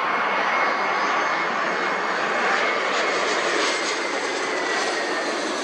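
Jet engines of a twin-engine Airbus A320 airliner on landing approach, passing low overhead: a steady rush of engine noise with a thin whine that drops slightly in pitch in the second half as it goes by.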